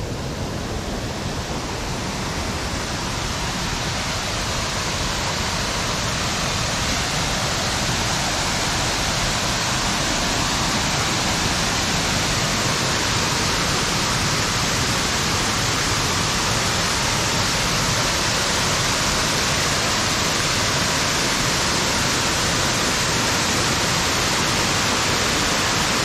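Waterfall: the steady rush of water pouring over a rock ledge into a river pool. It grows a little louder over the first several seconds, then holds steady.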